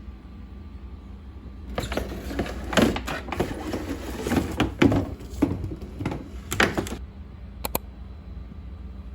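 Stretchy pink toy slime being squished and pulled by hand, giving a run of irregular wet clicks and pops for about five seconds, then a quick pair of clicks near the end.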